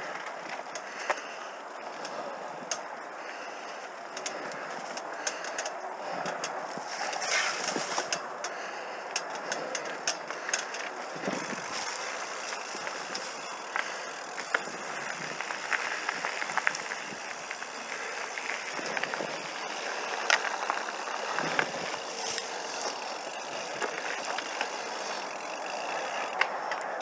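Mountain bike rolling along a gravel and rock singletrack: a steady crunch of the tyres on loose gravel, with frequent sharp clicks and rattles from the bike over bumps.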